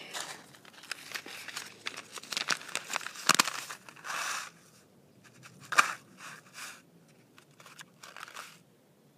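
Paper seed packet being handled and torn open, with irregular crinkling and rustling and a couple of sharper snaps partway through.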